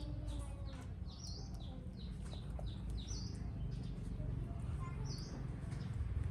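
High-pitched animal chirps: a short call repeating about every two seconds, with quick falling chirps between them, over a steady low rumble.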